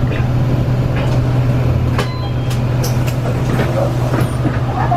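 Bus cabin with the diesel engine idling as a steady low hum. About two seconds in, a click and a short high two-note chime, falling from the first note to the second: the bus's door chime, abnormally high-pitched because the faulty, deteriorated unit has drifted up in pitch.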